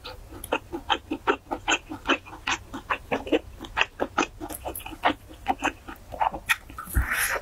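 Close-miked chewing of crunchy food, a steady run of crisp crunches about four or five a second.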